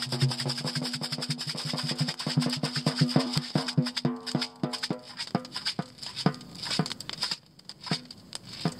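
Music with percussion over held low tones; the quick run of beats slows and thins out through the second half, fading to a few scattered strikes near the end.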